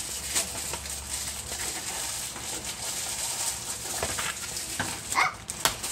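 Plastic packaging of a set of coloring pens rustling and crinkling as it is handled, with a few sharper clicks and crackles near the end.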